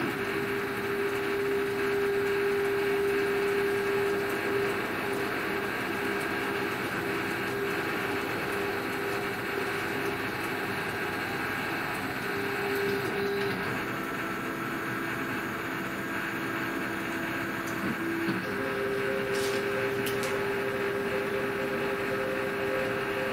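Hobby CNC router's axis drive motors whining steadily as the machine homes its axes one at a time. The pitch drops about halfway through and rises again a few seconds later as a different axis moves, with a couple of short clicks near the end.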